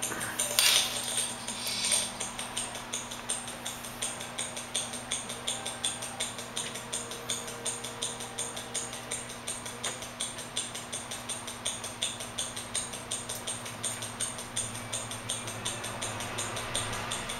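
Mechanical wristwatch (an Omega Seamaster De Ville) ticking in a timegrapher's microphone stand, an even rhythm of about five to six ticks a second. The timegrapher reads a rate of about +3 to +9 seconds a day, an amplitude of about 220 to 240 degrees and a beat error of 0.1 to 0.5 ms, so the movement is running healthily. A few louder knocks and rustles come in the first two seconds as the watch is handled.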